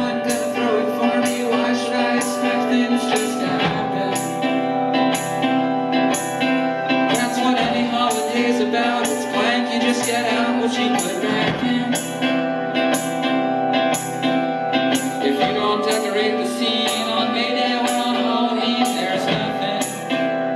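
Live rock band playing a song: electric guitar, keyboard and drums, with singing over it. The drums keep a steady beat of about two strokes a second.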